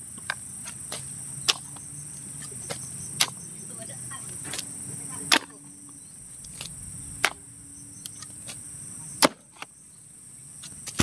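Steady high-pitched chorus of night insects such as crickets, broken by sharp, irregular knocks or clicks, roughly one a second, which are the loudest sounds.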